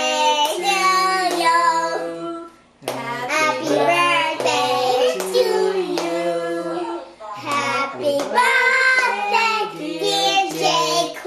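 Children and adults singing a birthday song together in phrases of a few seconds, with hands clapping along.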